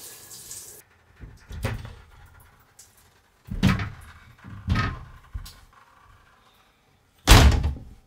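A series of dull thumps or bangs, about four main ones a second or so apart, the last near the end the loudest.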